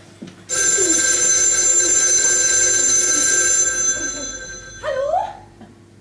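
Telephone bell ringing loud and unbroken for about three seconds, then fading out. A short voice cry follows near the end.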